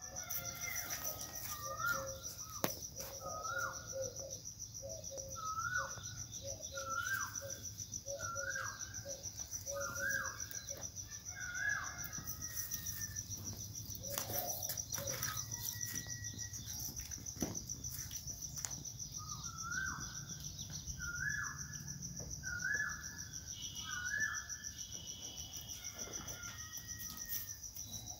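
Crickets trilling steadily at a high pitch, with a bird repeating a short call about once a second in two long runs, one in the first half and one later on. A few sharp clicks stand out.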